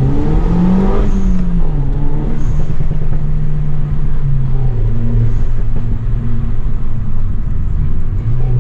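Renault Mégane RS Trophy's 1.8-litre turbocharged four-cylinder engine heard from inside the cabin, revving up under acceleration and shifting up about a second in. It then holds steady revs, dropping a little about four seconds in.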